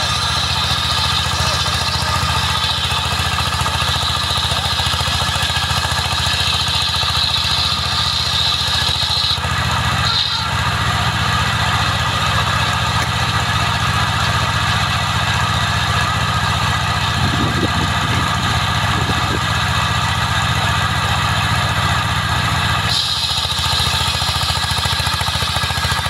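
Engine of a trailer-mounted portable sawmill running steadily. A high whine sits over it for the first nine seconds or so and comes back a few seconds before the end.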